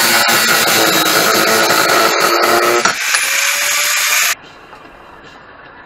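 Angle grinder with a cut-off wheel cutting through a metal tube, a loud grinding screech over the motor's whine. About three seconds in it comes off the work and runs free with a steadier, thinner whine, then the sound cuts off abruptly.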